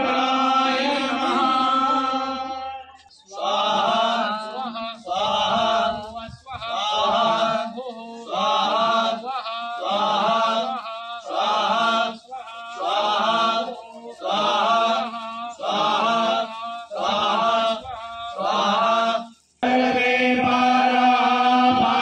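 Male chanting of Sanskrit mantras for a Hindu fire ritual (yagya): a long held note at first, then a run of short, evenly spaced chanted phrases about one a second, and a held note again near the end.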